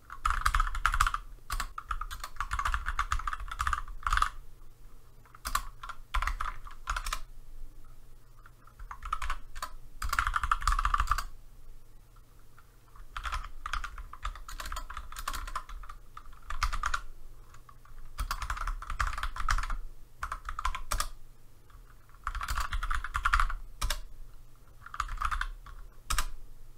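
Typing on a computer keyboard in several quick runs of keystrokes with short pauses between them, as commands are entered one line at a time.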